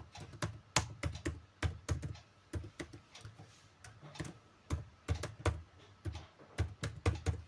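Typing on a computer keyboard: uneven keystrokes at about four a second with short gaps between runs.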